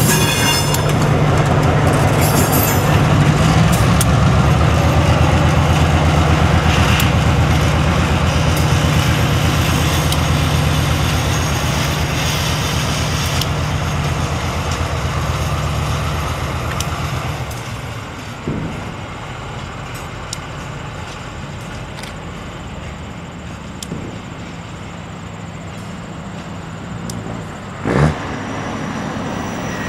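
Diesel switcher locomotive's engine running steadily as it pulls a cut of flatcars past, with wheels clicking on the rails. The sound drops off after about seventeen seconds as the train moves away. A single sharp knock comes near the end.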